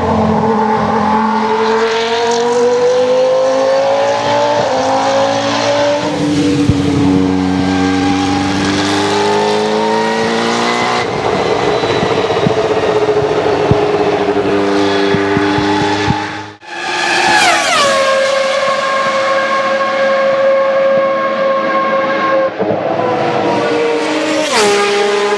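High-revving Formula 1 engine accelerating on track, its pitch climbing in steps with each upshift. About sixteen seconds in it cuts off abruptly and another F1 engine follows: a sharp drop in pitch, then a long steady high-rev note, with a brief break and a second sharp pitch drop near the end.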